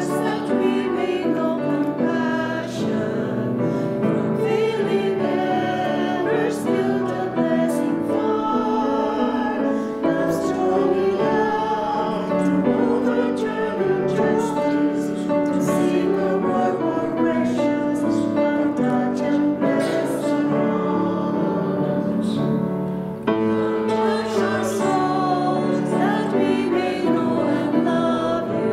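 A hymn sung by several voices with grand piano accompaniment, a steady verse of sustained sung lines over piano chords.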